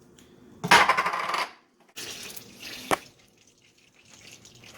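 Kitchen clatter of metal pans and utensils: a metallic rattle lasting under a second, then a lighter shuffle that ends in one sharp click.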